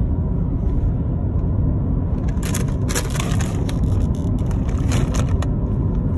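Road noise inside a moving car's cabin, a steady low rumble. From about two and a half to five and a half seconds in, a plastic snack bag crinkles in a hand in short crackles.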